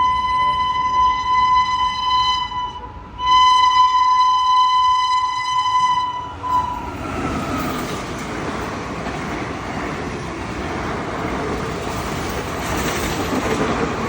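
Indian Railways WAP-7 electric locomotive sounding its horn in two long, steady blasts, the first ending about three seconds in and the second about six and a half seconds in. The train then rushes past with a loud, steady rolling noise.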